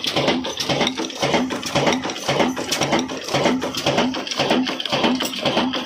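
Old 22 hp Diamond diesel oil engine running steadily, with a regular knocking beat of about four to five strokes a second.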